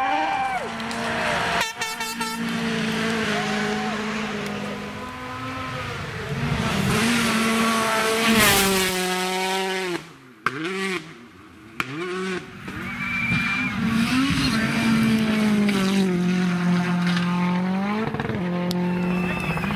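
Rally cars driven flat out on a gravel stage: high-revving engines climbing in pitch, then dropping back at each gear change or lift, again and again, with a few sharp cracks along the way.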